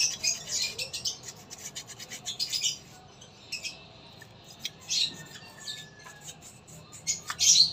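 Scratchy rubbing and small clicks from a scooter's front brake caliper being worked by hand as its rusty piston is rubbed clean. Quick strokes run through the first three seconds, then come in short spells.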